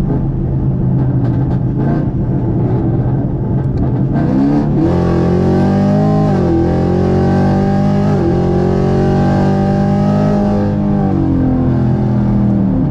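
E85-tuned, full-bolt-on 6th-gen 1LE's engine heard from inside the cabin, running steadily. About four and a half seconds in it goes to full throttle, revs climbing through the gears with two quick upshifts, then lifts off near the end. The pull is made with traction control on.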